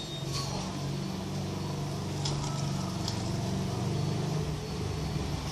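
A steady, low engine-like hum.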